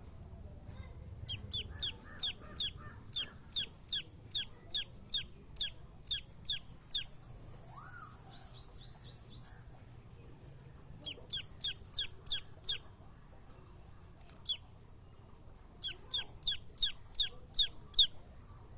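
Domestic chicks peeping: loud, high, downward-sliding peeps, about two to three a second, in runs with short pauses between them. A softer, quicker run of peeps comes in the middle.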